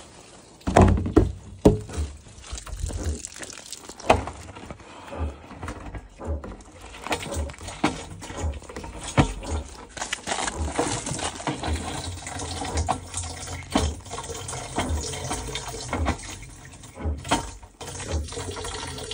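A stream of filtered water running from a small ball-valve spout into a large plastic water jug, filling it. Several loud thumps and knocks from handling the jug in the first couple of seconds.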